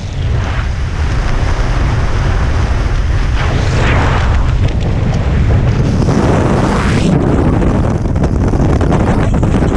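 Wind buffeting the microphone of a helmet camera during a parachute descent under canopy: a loud, steady rumble that swells twice, about four and about seven seconds in.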